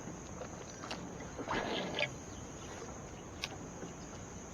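Insects droning steadily at a high pitch, with a brief noisy swell about one and a half seconds in and a single sharp click a little later.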